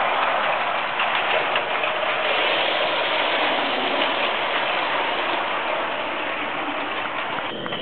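LGB G-scale model train running along the track: a steady whirring rattle of its motor gearing and wheels on the rails.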